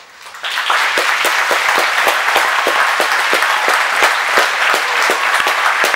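Concert audience applauding after a choral piece: the clapping breaks out suddenly and swells to full, steady applause within about a second, with a few close, sharp individual claps standing out.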